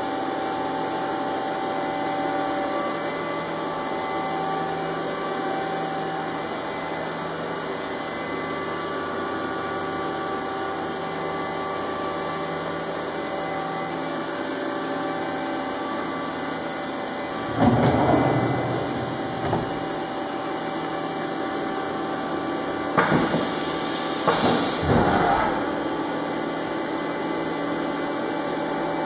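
Hardinge Cobra 42 CNC lathe running: a steady machine hum with several high, steady whines. It is broken by a louder rushing burst about two-thirds of the way in and a cluster of shorter bursts near the end.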